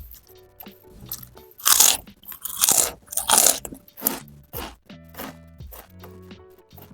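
Loud, close crunching as someone bites and chews crisp fried food, with three big crunches in the middle and softer chewing around them. Background music plays underneath.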